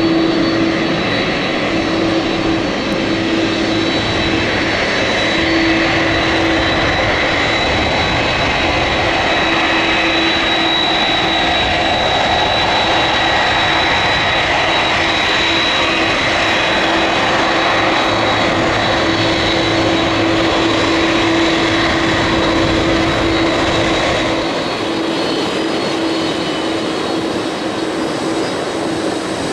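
Boeing 767-300ER's twin jet engines running as the airliner lands, a steady loud engine noise with a held hum and a high whine running through it. The low rumble drops away near the end.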